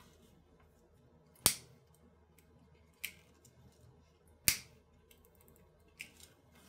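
Disposable flint lighter being struck to burn off trimmed thread ends on a leather seam: two sharp clicks about three seconds apart, with fainter clicks between and after.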